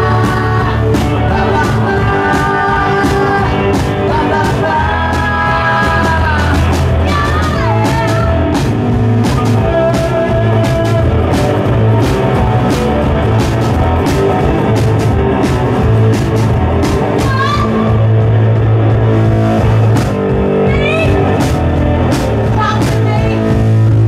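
Live rock-and-roll band playing with electric guitar and drum kit, with a voice singing for the first several seconds before an instrumental stretch with steady drum hits.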